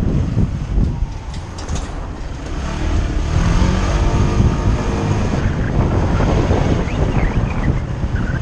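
Wind rumbling over the microphone on a moving vehicle, with engine noise underneath that rises and falls around the middle.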